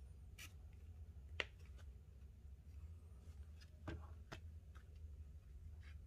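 Faint handling noise of paracord being wrapped and pulled tight by hand: a few short rubs and small clicks, the sharpest about a second and a half in and two more close together around four seconds, over a low steady hum.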